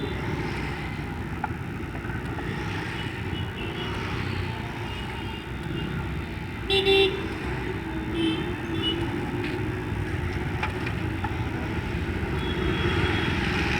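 Road traffic with a steady engine and road rumble, and a vehicle horn honking once, short and loud, about seven seconds in. A few fainter horn toots follow.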